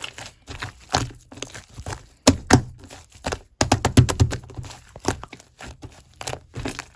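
Irregular crackling and crinkling clicks from something being handled and squeezed, coming in quick clusters that are densest around the middle.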